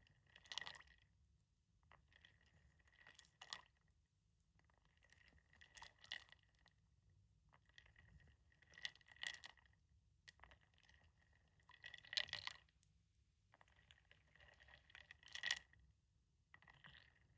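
Wooden beads tapping and clicking together with water, in short clusters about every three seconds.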